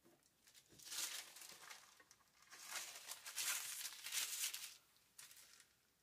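Paper sheets rustling and crinkling as a tracing sheet and graphite transfer paper are lifted and handled on a small canvas. There are two stretches of rustling, one about a second in and a longer one from about two and a half to nearly five seconds in, then a brief rustle near the end.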